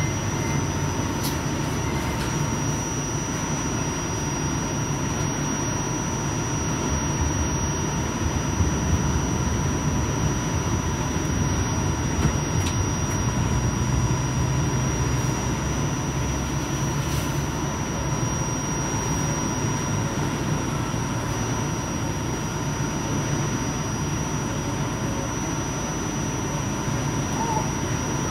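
Breda light rail car of the RTA Blue Line running along the track: a steady low rumble with a faint, constant high whine and a few light clicks.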